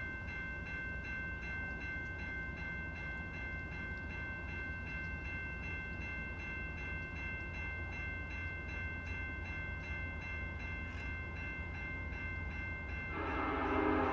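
Railroad grade-crossing bell ringing steadily at a fast, even beat. About a second before the end, the horn of the approaching freight locomotive sounds, a louder held chord.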